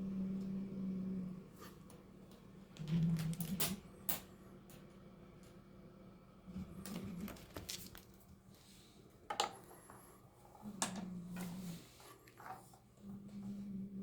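A cat giving long, low guarding growls over its catch, a warning to keep away. There are five growls of about a second each, with scattered clicks and knocks between them.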